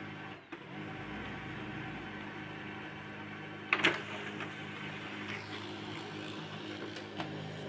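HP LaserJet P1102 laser printer running as it prints a test page: a steady motor and gear hum, with one sharp click about four seconds in.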